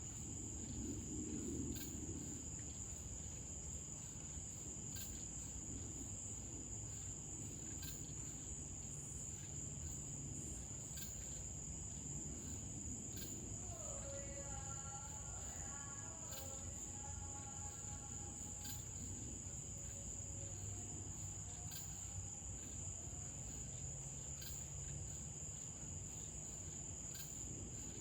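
Night insect chorus: crickets trilling steadily in one continuous high-pitched note. A faint pitched tone from something far off comes in briefly about halfway through.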